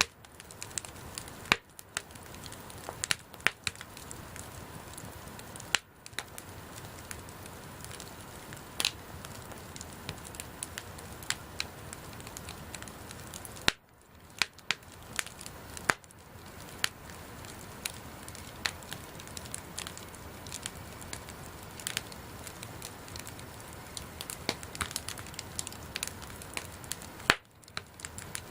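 Wood bonfire burning: irregular sharp crackles and pops over a steady low hiss of the flames, with a few louder snaps.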